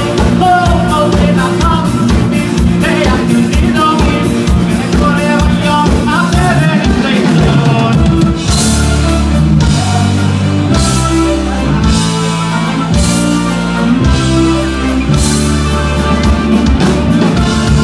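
Live band heard through a PA system: a man singing into a microphone over drum kit and keyboard. About eight seconds in the band moves into heavy sustained bass chords with cymbal crashes every second and a half or so.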